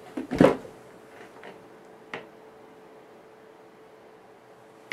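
Handling noise: a short knock and rustle about half a second in, then a few faint clicks, over a faint steady hum.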